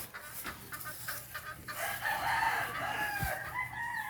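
A rooster crowing: one long call that starts about two seconds in and runs on to the end. Before it, a few short scraping strokes of digging in soil.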